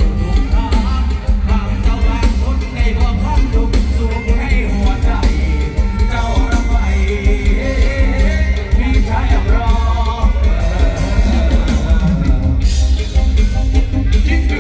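Live mor lam band music played loud through a PA system, with a heavy pulsing bass and a singer's voice over it.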